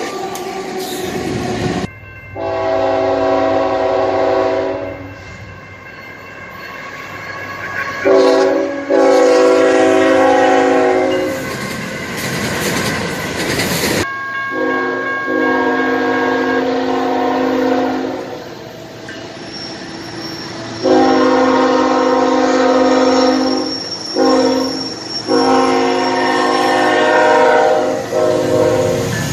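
Nathan Airchime K5HL five-chime locomotive air horn (third generation) sounding a chord of several tones in long blasts, across clips joined with abrupt cuts. In the last clip it plays the grade-crossing pattern: long, long, short, long. Running noise of the passing train fills the gaps.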